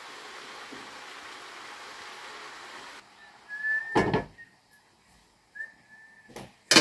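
A steady hiss, then a metal pot lid set down on a cooking pot with a clank about four seconds in, and a sharp metal clink near the end as utensils meet a metal pan. Faint high whistling tones come and go in between.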